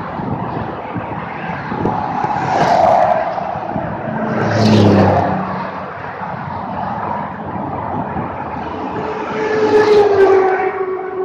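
Sport motorcycle riding on the road: a steady rush of wind and engine noise that swells three times, about 3, 5 and 10 seconds in, the last swell leaving a steady engine note.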